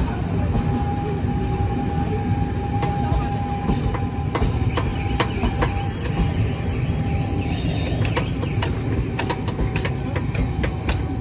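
Passenger coaches of a train rolling past: a steady rumble with a run of sharp wheel clicks on the rails, and a faint steady whine for the first several seconds.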